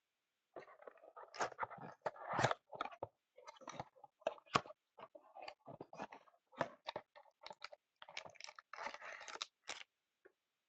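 Irregular crinkling and crackling of plastic wrap and cardboard as a sealed trading-card box is handled and opened.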